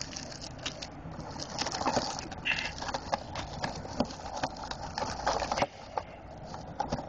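Handling noise close to the microphone: rustling and scraping with scattered clicks and knocks.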